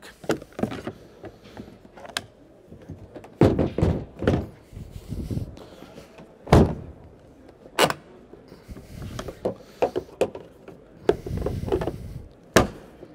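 Sections of a NATSEQ modular plastic kayak being fitted together by hand: a series of separate knocks and thunks as the hull pieces are pushed into place and locked at the joint, with quieter handling and scraping between them. The loudest knock comes about six and a half seconds in.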